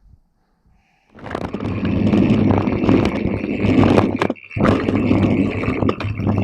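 Mountain bike ridden over a rough trail: a continuous rattling rumble full of sharp clacks, with a steady low hum underneath. It starts suddenly about a second in and drops out briefly just after four seconds.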